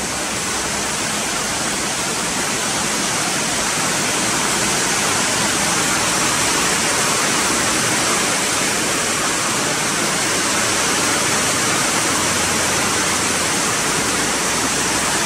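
A steady, even rushing hiss, loud and unbroken, strongest in the upper range, with no separate knocks or rhythm.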